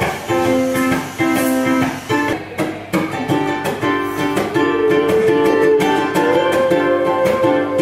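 Ukulele strummed in a steady chord rhythm, with a long held note coming in over it about halfway through.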